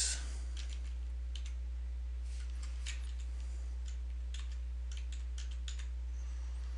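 Computer keyboard keys tapped in short irregular runs, faint scattered clicks, over a steady low hum.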